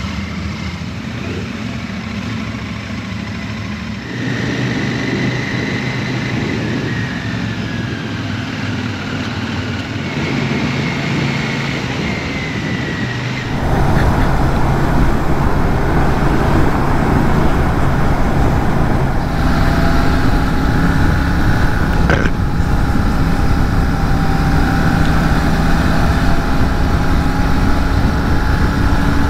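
Royal Enfield Shotgun 650's 648 cc parallel-twin engine heard onboard, first running at low speed as the bike moves off among other motorcycles. About 13.5 s in, the sound jumps to the engine running at highway speed under a loud, steady wind rush.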